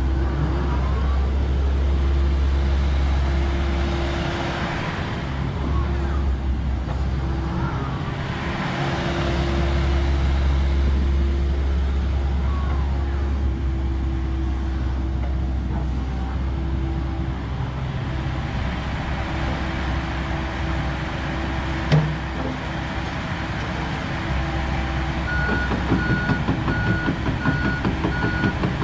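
Komatsu PC78US-8 excavator's diesel engine running under load while its hydraulics work the boom, arm and swing, the pitch of the hydraulic whine changing with each movement, with one sharp knock partway through. Near the end a warning alarm starts beeping steadily.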